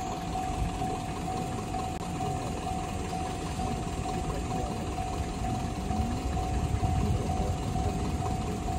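Japanese level-crossing warning bell ringing in a rapid, evenly repeated single tone, the crossing's alarm while a train approaches. A low rumble sits underneath and grows a little louder late on.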